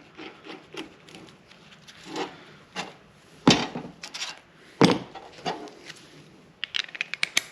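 Steel hardware of a ball-joint rebuild tool being handled as a nut is fitted onto its bolt: light rubbing and clinks, two sharper knocks in the middle, and a quick run of small clicks near the end.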